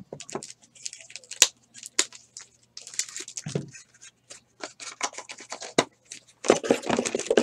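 Small cardboard trading-card box and its plastic-wrapped card being opened by hand: scattered clicks and scratches of cardboard, then a louder stretch of plastic crinkling near the end.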